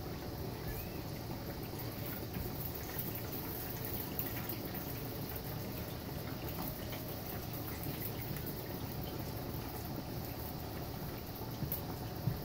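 Hot oil sizzling and bubbling steadily in a deep pot as food deep-fries, with many small crackling pops. There is a short knock near the end.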